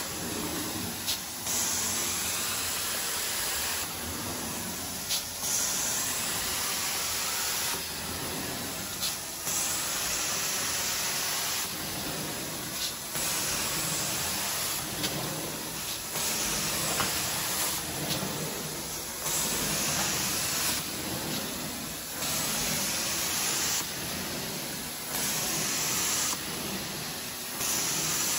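Carpet-cleaning extraction wand pulled across carpet: vacuum suction running steadily while the spray hisses on and off in strokes of one to two seconds. A few short clicks are heard.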